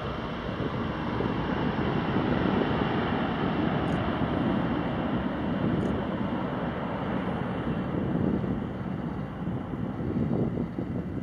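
A Boeing B-52 Stratofortress's eight turbofan engines at takeoff power as the bomber climbs away after takeoff: a steady, noisy rumble with no distinct tones.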